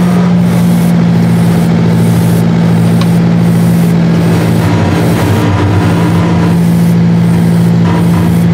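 Detroit Diesel 12V92 two-stroke V12 diesel engine of a 750 hp Rite 750 Earthquake tractor running under load, a steady, even drone as it pulls a 20-bottom moldboard plow, heard from inside the cab.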